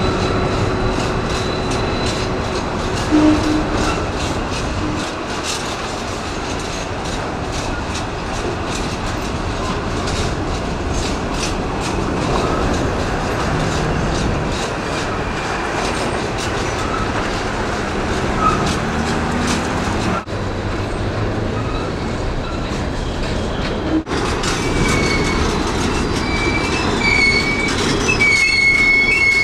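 Empty coal hopper wagons rolling slowly past, wheels clicking and clattering on the track. Near the end, high-pitched wheel squeal sets in as the wagons take the curve.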